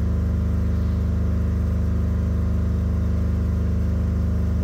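A steady low hum, unchanging in pitch and loudness.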